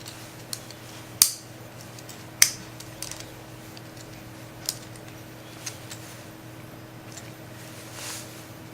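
Plastic UMD replacement case covers being pressed and snapped together around the disc: two sharp clicks a little over a second apart, with several fainter clicks and taps of handling the plastic.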